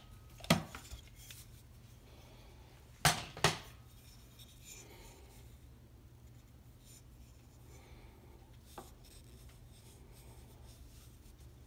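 A quick-release bar clamp being opened and a wooden plane tote lifted free: a click, then two sharp knocks about three seconds in, followed by quiet handling of the wood.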